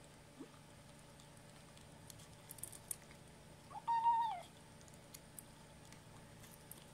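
A kitten eating dry kibble: a few faint crunching clicks, then about four seconds in one short, steady-pitched "nom" call that drops at the end. It is the growl-like noise a kitten makes over its food, which the owner read is meant to tell others the food is its own.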